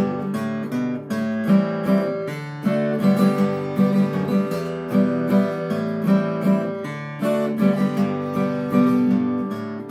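Acoustic guitar strummed alone in a steady rhythm of chords, the instrumental interlude between sung verses of a song.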